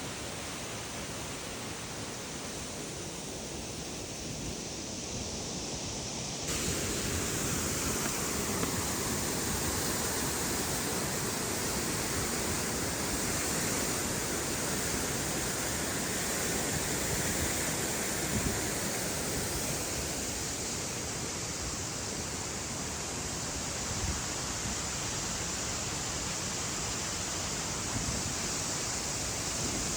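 Steall Waterfall close up: water falling and crashing as one steady rushing noise, which becomes suddenly louder about six seconds in.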